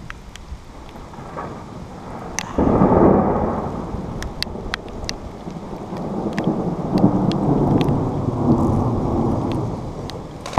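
Rolling thunder from a storm. A low rumble sets in sharply about two and a half seconds in, rolls on for several seconds and swells again later, with scattered sharp clicks over it.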